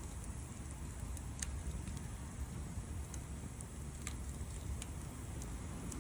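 Wood bonfire burning: a steady low rumble with sparse sharp crackles, the loudest about a second and a half in and just after four seconds.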